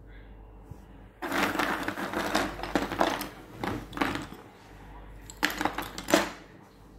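Dry Merauke agarwood (oud) chips clattering and rustling against each other as a hand scoops through the pile and lets them fall. This happens first for about three seconds, then again briefly near the end.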